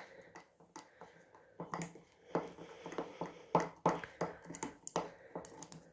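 Spoon stirring a thick mixture of honey and ground seeds in a container, giving irregular small clicks and knocks against its sides.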